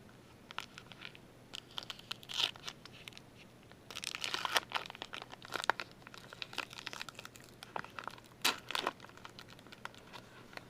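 A foil trading-card pack wrapper being crinkled and torn open by hand, in uneven bursts, with the busiest stretch a little before the middle and a sharp crackle near the end.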